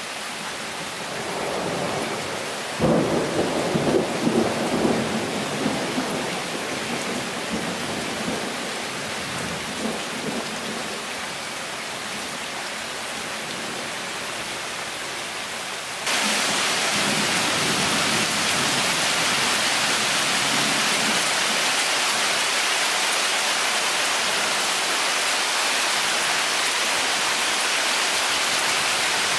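Heavy summer rain pouring steadily onto leaves, with a rumble of thunder about three seconds in that rolls for a few seconds. About halfway through, the rain abruptly becomes louder and denser and stays that way.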